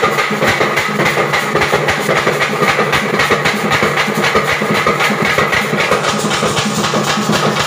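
Festival drum ensemble playing a fast, steady, driving beat.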